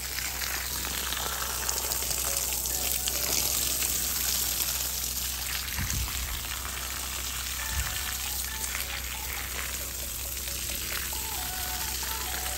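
Garden hose spraying a stream of water onto soaked bark mulch at the base of a small tree: a steady hiss and spatter as the water fills the watering ring built around the trunk.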